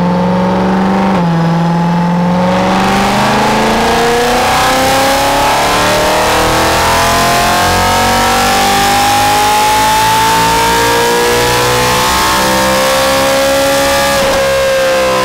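BMW M3's V8 making a wide-open dyno pull on a chassis dyno. The pitch dips about a second in, then the engine note climbs slowly and steadily for around thirteen seconds, then falls away near the end as the throttle is lifted.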